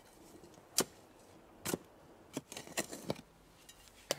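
A small hand digging tool stabbing and scraping into forest soil to dig a post hole. About five sharp, irregular strikes, the first, about a second in, the loudest.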